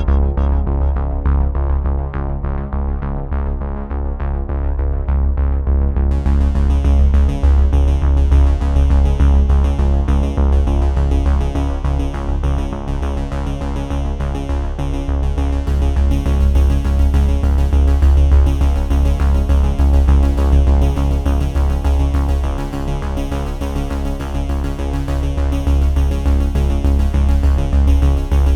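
Background electronic music with synthesizer and a strong, steady bass; the high end fills out about six seconds in.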